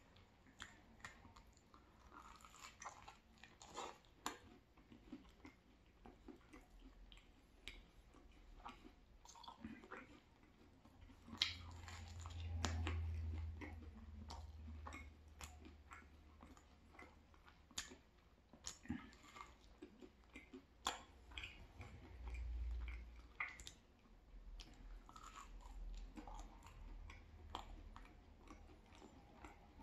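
Close-miked chewing and crunching of crispy thin-crust pizza, with many short, crisp crackles throughout. Two brief low rumbles stand out, about twelve seconds in and again about ten seconds later.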